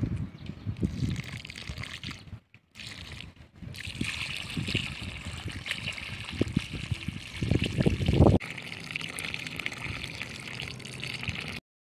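Water poured from a plastic bucket into a muddy basin of soil, trickling and splashing, with heavier splashes near the start and again about eight seconds in. It cuts off abruptly shortly before the end.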